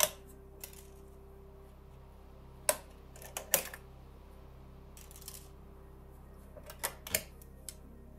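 Irregular sharp clicks and taps of hands handling test leads and parts on an electronics bench. One comes right at the start and another about three and a half seconds in, with small clusters around five and seven seconds. A faint steady hum runs underneath.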